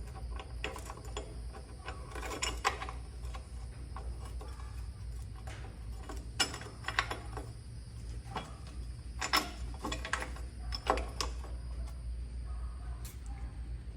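Scattered sharp mechanical clicks and knocks, a dozen or so at uneven intervals, over a steady low hum.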